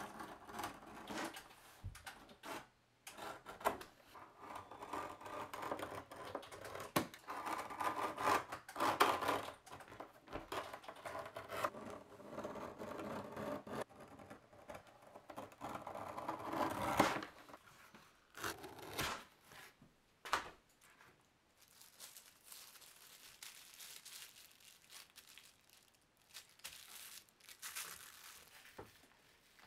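A small knife blade slicing and scraping through leather in irregular strokes on a cutting mat, busiest in the first two thirds, then softer rustling as the cut leather is handled near the end.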